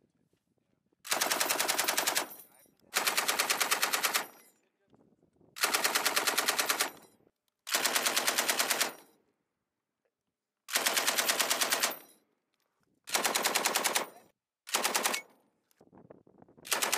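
Belt-fed machine gun firing short bursts of about a second each, at about ten shots a second. There are seven bursts, separated by gaps of one to one and a half seconds, and an eighth starts near the end. Each burst ends with a brief echo.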